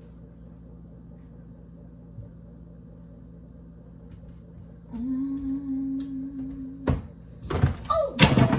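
Kitchen handling noises. A steady hum sounds for about two seconds and stops with a sharp click. Then comes a loud cluster of knocks and clatter near the end.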